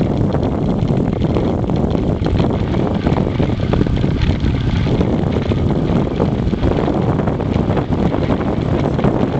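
Wind rushing over the microphone of a camera riding on a moving bicycle, over steady rumble from the tyres on rough tarmac.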